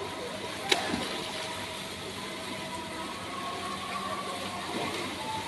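Swimming-pool ambience: children moving in the water over a steady mechanical hum, with one sharp smack less than a second in.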